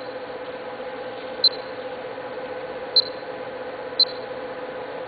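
Short high electronic beeps from a Duplo 4000 booklet system's touchscreen control panel as its keys are pressed, about four of them at uneven intervals. Underneath is the machine's steady electrical hum.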